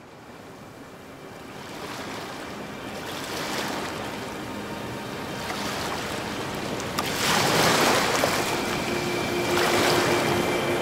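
Rushing, surf-like wash fading in from silence and swelling in several waves. Faint held tones come in near the end as a soundtrack's music begins.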